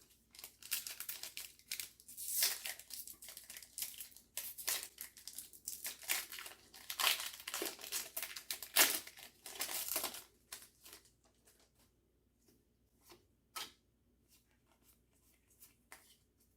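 Pokemon booster pack wrapper being torn open and crinkled by hand for about ten seconds, then a few faint clicks as the cards are handled.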